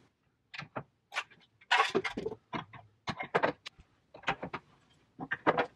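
An irregular run of small clicks, knocks and rustles from someone moving about and handling things by a bed, with a denser rustling patch about two seconds in.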